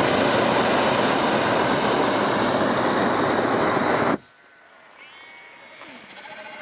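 Hot air balloon's propane burner firing: a loud, steady roar that cuts off sharply about four seconds in. After it stops, sheep bleat faintly.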